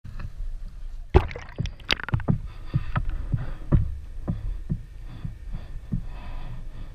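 Sea water sloshing around a GoPro in its waterproof housing as it is held at and below the surface: a low muffled rumble with sharp, irregular knocks and slaps, about two a second and loudest in the first half.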